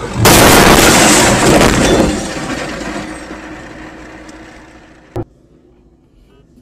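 A car crash heard from inside the car: a sudden loud impact with glass breaking as the windshield cracks, lasting about two seconds, then fading over the next few seconds. A short sharp click comes about five seconds in.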